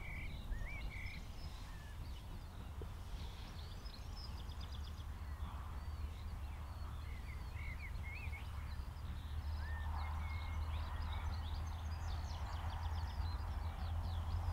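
Birds singing over the low rumble of a distant steam locomotive and its train working toward the listener, the rumble slowly growing louder from about two-thirds of the way in.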